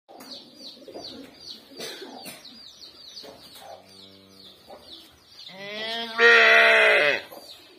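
A young calf bawling once near the end, one long loud call of about a second and a half that rises in pitch at the start, with a faint lower call shortly before it. A chick peeps rapidly in high short chirps throughout.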